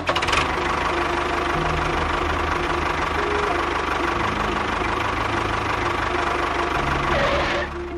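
A small motor running steadily for about seven and a half seconds, starting and stopping abruptly, with background music continuing underneath.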